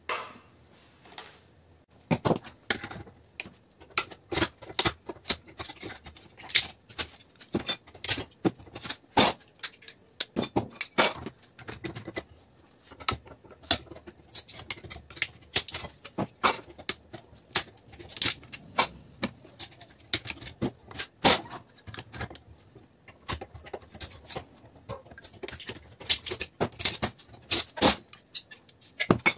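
Metal fluorescent-lamp ballasts being worked apart with pliers and other hand tools: an irregular run of sharp metallic clicks, clinks and knocks, starting about two seconds in.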